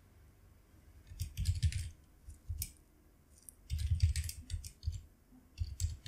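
Typing on a computer keyboard in several short bursts of keystrokes, the first starting a little over a second in, with brief pauses between.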